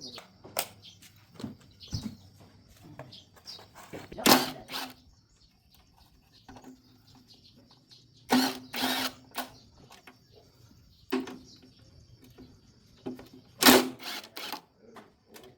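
Intermittent metallic clanks and clicks of tools and parts being handled while a flooded motorbike is taken apart, the loudest ones ringing briefly. A faint steady high-pitched tone runs behind them.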